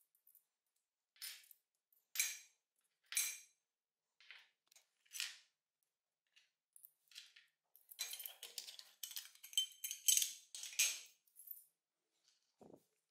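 Small metal parts of a pneumatic nailer clinking against each other as they are handled and fitted together by hand: single light clinks about once a second, then a quick run of clinking for about three seconds near the end.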